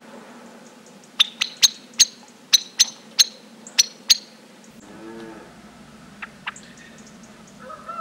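Common blackbird giving a quick run of sharp 'chink' calls, about nine in three seconds, then two more a little later. A short low call sounds in the distance about five seconds in.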